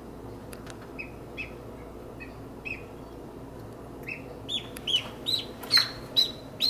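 Newly hatched duckling peeping: short high peeps, scattered at first, then coming quicker and louder over the last few seconds.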